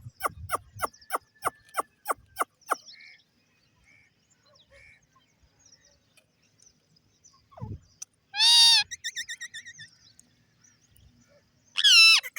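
Parrots calling: a quick run of short, sharp chirps, then a lull, a loud squawk about eight seconds in followed by a chattering trill, and another loud, wavering call near the end.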